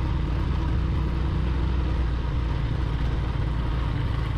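Honda Verza 150's single-cylinder engine running steadily as the motorcycle rides slowly over a rough dirt track, heard from the rider's own bike, with a steady haze of riding noise over it.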